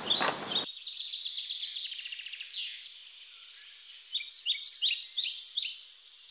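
Small birds chirping high and thin: a fast trill that fades over the first few seconds, then a louder run of short, quick, falling chirps from about four seconds in.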